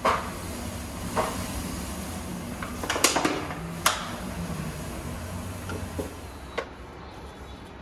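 Hand spray bottle squirting water into a hot tandoor oven: several short, sharp spray bursts, the loudest about three and four seconds in, over a steady low background noise.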